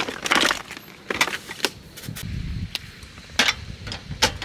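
Cooking and camping gear being handled: a string of sharp clinks and knocks, with a cluster of them at the start.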